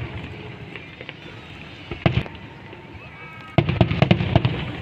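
Fireworks going off: a short volley of bangs about two seconds in, then a rapid string of bangs and crackles from about three and a half seconds in, over the hubbub of a crowd.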